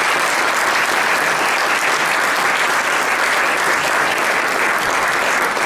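Audience applauding, steady dense clapping throughout.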